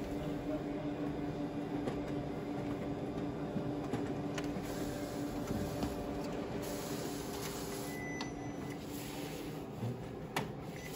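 Konica Minolta multifunction printer running with a steady mechanical hum after a print job; a low tone in the hum stops shortly before the end. A few light clicks, one near the end.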